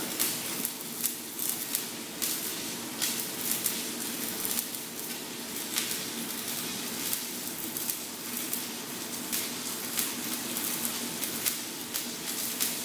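Electric welding arc on heavy-wall steel pipe, crackling and sizzling steadily with sharp pops several times a second over a low, even hum.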